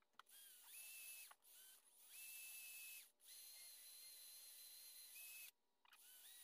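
Cordless drill spinning a wire wheel brush against a rusty pocketknife blade, run in about five short bursts, each starting with a whine that rises as the motor spins up, over the hiss of the wire on steel.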